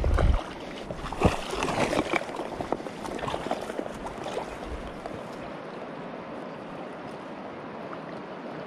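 Shallow river current rushing steadily. A low thump at the very start and several sharp splashes and knocks in the first two to three seconds, then only the even rush of water.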